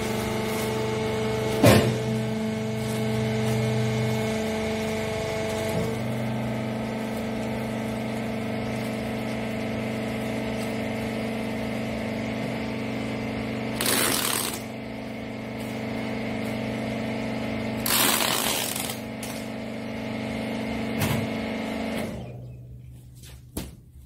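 Hydraulic rag baler's power unit running with a steady hum, its tone shifting about six seconds in, with a click, two short hissing bursts, and the hum cutting off near the end.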